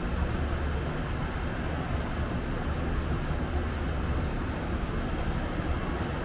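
Steady roar of city traffic heard from high above, with a deep rumble: motorbikes, cars and trucks moving on the road below a stalled elevated ring road.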